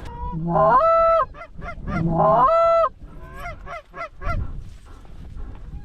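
Canada goose honking: two long, loud honks that break upward in pitch and hold, followed by a quick run of shorter clucks that trail off.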